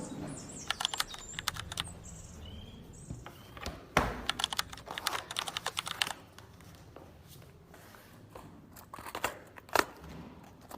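Light clicks and taps in irregular runs, densest in the middle, with a couple of sharper clicks near the end.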